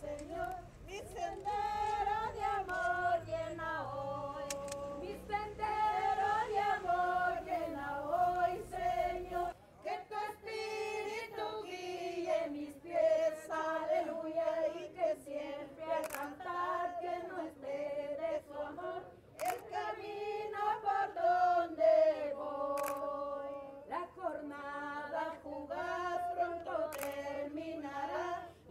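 A voice singing a slow melody with long held, sliding notes. Under it a low rumble, like a car ride, stops about ten seconds in, and a few sharp clicks come later.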